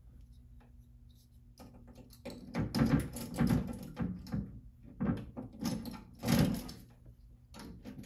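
Lock pick and tension wrench working the wafer cam lock on a steel fire alarm control panel door: a string of short metallic scrapes and clicks, loudest about six seconds in, as the lock is picked open.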